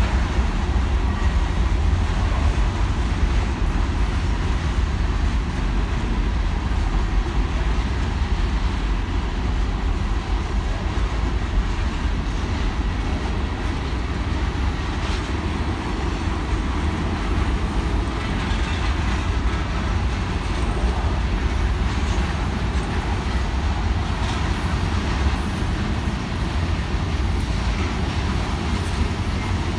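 Cars of a manifest freight train rolling steadily past: a continuous rumble of steel wheels on the rails.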